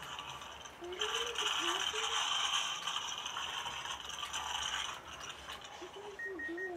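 Rapid rattling and scraping for about four seconds, starting about a second in, with faint children's voices.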